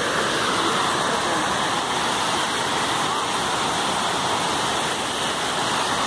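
Waterfall rushing: a steady, even noise of falling water, unchanging in level.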